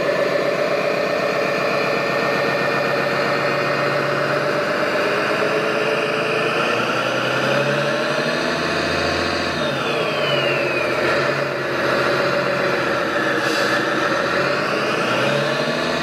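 Engine sound of a radio-controlled MAN tipper truck, running steadily as the truck reverses slowly, with a short falling whine about ten seconds in and again near the end.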